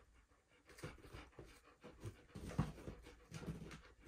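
A dog panting faintly, in short irregular breaths.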